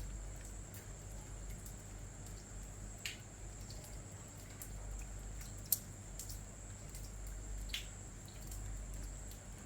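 Night rain with water dripping in distinct single drops, one sharper drip standing out a little after halfway. A steady high-pitched tone runs underneath.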